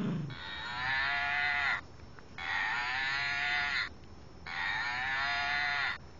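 A cow dog toy's built-in moo sounding three times, each moo about a second and a half long with short gaps between. A brief low thump comes right at the start.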